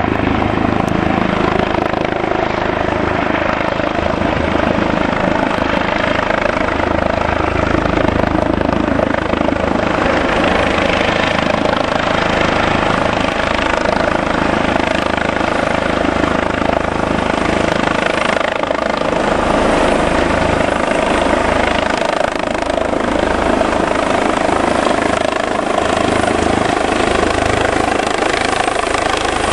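Airbus H145 twin-engine rescue helicopter running steadily, its rotor and turbine noise loud and unbroken.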